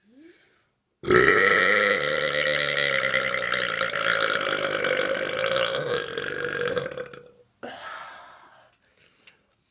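A woman's single long, loud belch, starting about a second in and lasting about six seconds, followed by a shorter, softer sound.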